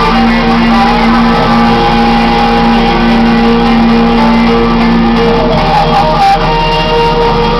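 Music with guitar, held notes changing every few seconds.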